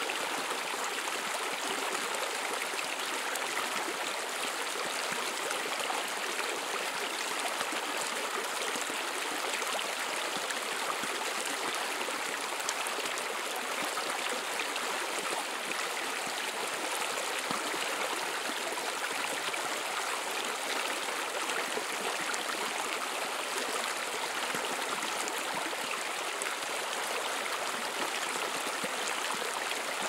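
Running water flowing steadily: an even rushing noise that does not change, with no separate splashes or drops.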